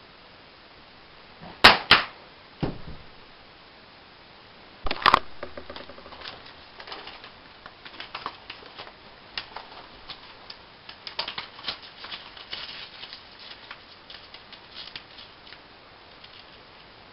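Hand-handling noises: two sharp knocks about two seconds in, another shortly after, and a louder knock near five seconds, followed by a long run of light, irregular clicking and crackling.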